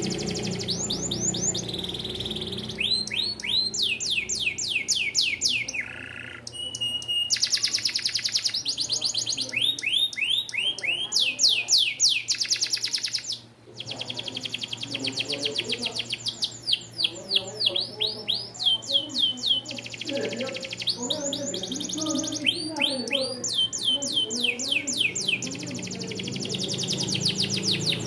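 Domestic canary singing: long, fast trills of repeated rising chirp notes, broken by a few short held whistle notes and a brief pause about halfway through.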